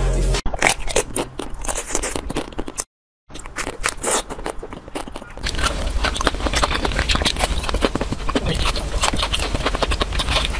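Crunchy bites and chewing of frozen ice cream bars, dense crackly snaps of a hard coating breaking, with a brief silent break about three seconds in.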